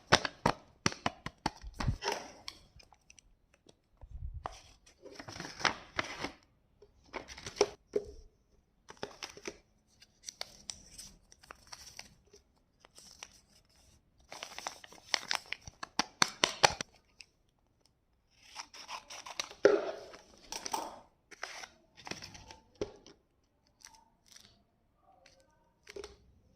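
Blind-bag packaging being torn open and handled, in irregular bursts of tearing and rustling with short pauses between.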